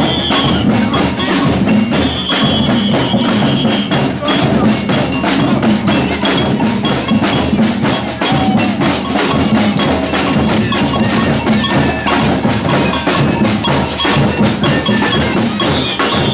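Batucada samba percussion ensemble playing a dense, continuous rhythm: deep bass drums under quick drum strikes and metallic bell hits.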